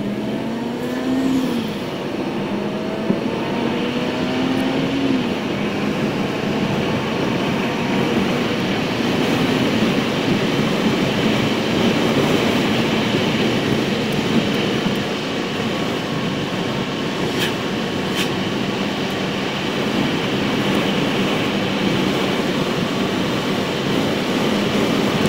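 Car engine and road noise heard from inside the cabin while driving. The engine pitch rises twice in the first five seconds as the car accelerates, then settles into steady cruising.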